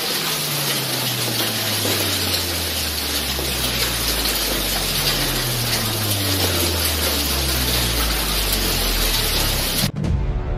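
Heavy hail and rain storm pouring down in a dense, steady hiss, with a low rumble underneath. It cuts off abruptly near the end as music begins.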